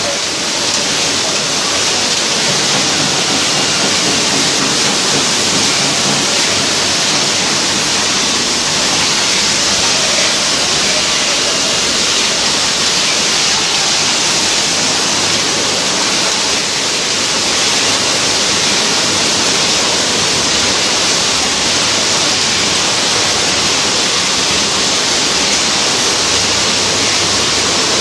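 A canning production line running, heard as a loud, steady rushing hiss with no clear rhythm.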